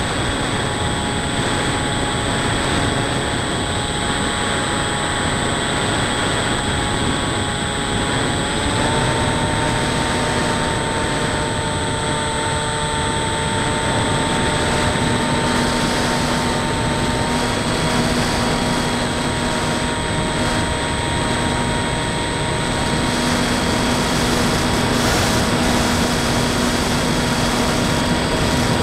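Wind rushing over the onboard camera of a Bixler 2 electric RC plane in flight, with the steady whine of its pusher electric motor and propeller; the whine steps up slightly in pitch about eight seconds in.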